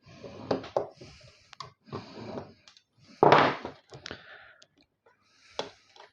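Handling and working the metal case of a PC power supply to free a trapped cable: a series of knocks and clicks, and about three seconds in one loud rasping scrape lasting about half a second.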